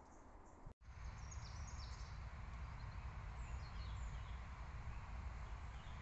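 Outdoor ambience: a steady low rumble of wind on the microphone with a few short bird chirps. It starts after a brief dropout just under a second in.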